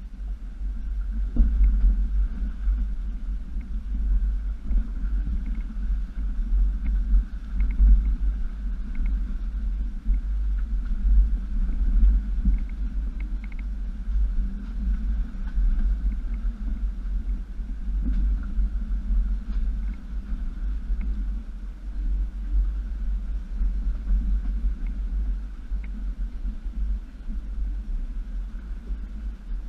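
2007 Jeep Wrangler Unlimited Sahara's 3.8-litre V6 running as the Jeep crawls through a shallow rocky creek: a steady low rumble, with a few faint clicks.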